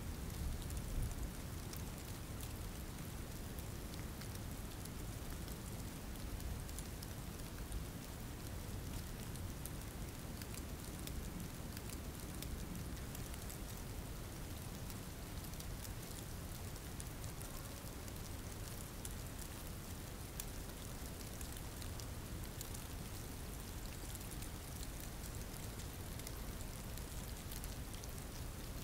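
Steady rain falling: a dense, even hiss with many sharp drop ticks and a low rumble underneath.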